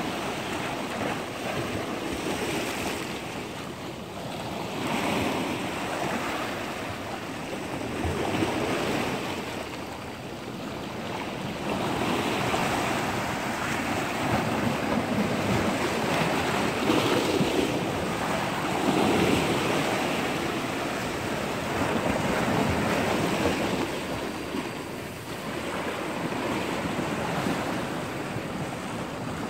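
Sea surf breaking and washing over shoreline rocks, swelling and ebbing every few seconds, with wind buffeting the microphone.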